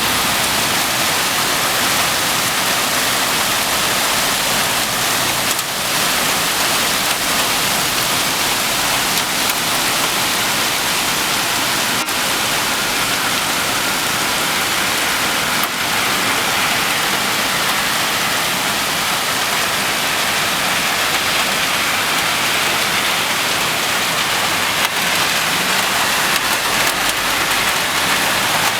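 Rain pouring down in a steady, loud hiss, with a few sharp clicks of drops hitting something close by.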